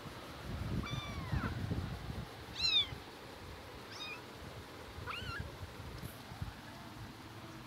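A kitten mewing in four short, high-pitched calls, the loudest about three seconds in. Soft low thumps and rustling from its play run underneath, mostly in the first half.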